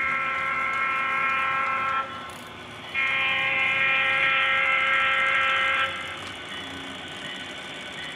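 Horn of a sound-equipped HO scale model diesel locomotive, blown in two long blasts, the second longer, thin and without bass as from the model's small speaker, over a steady running noise.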